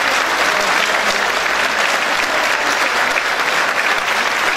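Theatre audience applauding steadily and loudly, many hands clapping at once.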